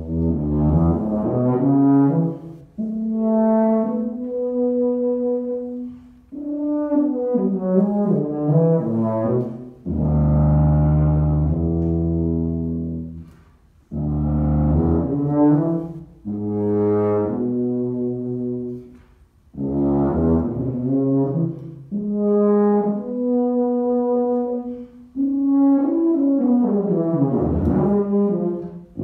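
Solo Miraphone tuba improvising in phrases of a few seconds each, with held notes and quicker runs of notes separated by short breaks for breath. Near the end the pitch slides down and back up.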